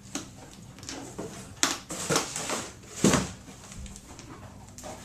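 Knocks, clicks and rustling from a Polaroid Land camera and its packaging being handled and unpacked, a few separate strokes with the loudest knock about three seconds in.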